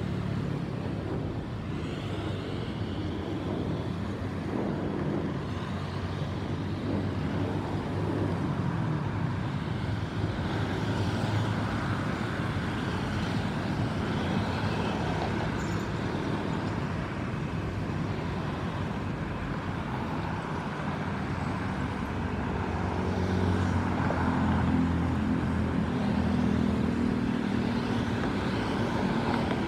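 Boeing 737-800 with CFM56 turbofan engines flying over, heard as a steady distant jet roar with a slowly wavering tone.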